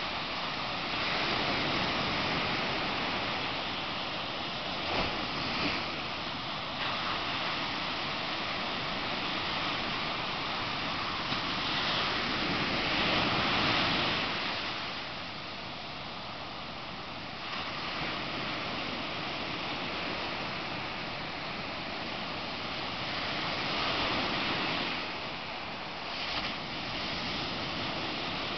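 Atlantic Ocean surf: waves breaking and washing up the beach in a steady rush that swells and eases, loudest about halfway through.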